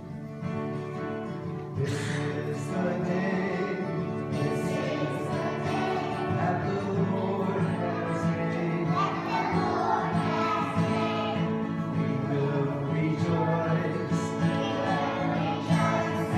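A group of preschool children singing a song together, with musical accompaniment. It starts softly about half a second in and becomes fuller about two seconds in.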